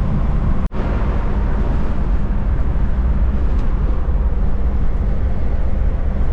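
A 1965 Ford Falcon cruising at about 65 mph on the interstate, heard from inside the car. The engine and road noise run steadily, with a momentary dropout just under a second in.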